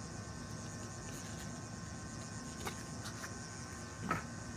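Faint handling noises of small items being moved around: a few light clicks, and a soft knock about four seconds in, over a steady, high, pulsing background chirr.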